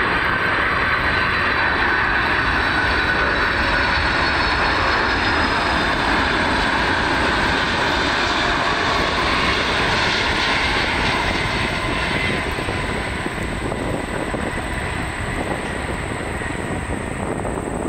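Boeing 747's four jet engines on landing approach: a steady rumble with a high whine that sinks slightly in pitch as the airliner passes, easing a little in the last few seconds as it flares over the runway.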